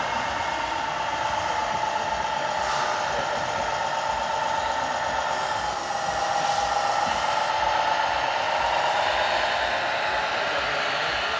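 Steady whine of small electric motors in radio-controlled model gear, dipping slightly in pitch about halfway through, with a brief high hiss in the middle.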